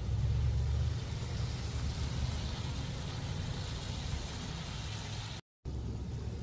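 Vehicle engines idling in a steady low rumble, with a brief dropout to silence about five seconds in.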